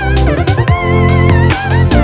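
Intro music: a guitar-led track with bass and a steady beat.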